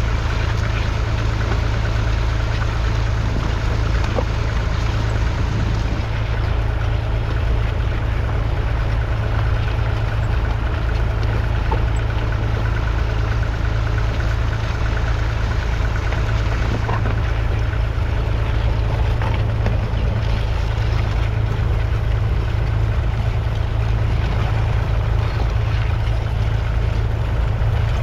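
Massey Ferguson 35's 2.5-litre three-cylinder diesel engine running steadily with a continuous low hum.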